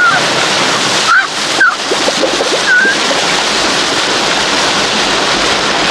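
Rushing water from a film soundtrack, a dense steady wash like a torrential jungle downpour or mud torrent. A few short high squeals sound over it, and there are two sudden loud splashing hits a little after a second in.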